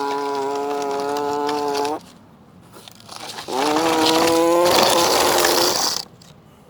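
A person's voice imitating a tractor engine working under load: a long buzzing drone held steady for about two seconds that stops abruptly, then a second drone that rises in pitch and ends with a hiss before cutting off.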